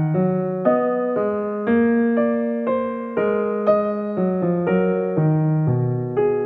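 Soft piano music: gentle chords struck about twice a second, each note fading before the next.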